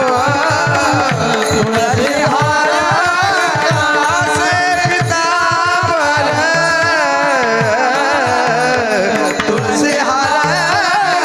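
Devotional kirtan singing: a man's voice sings long, gliding, ornamented phrases over hand-drum strokes whose deep notes drop in pitch.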